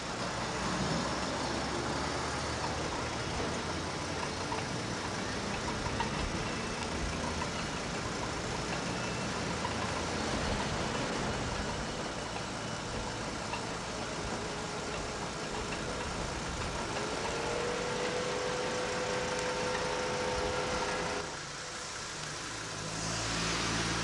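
Traffic of cars driving by, a steady mix of engine and road noise. A single held tone comes in about two-thirds of the way through and stops a few seconds later.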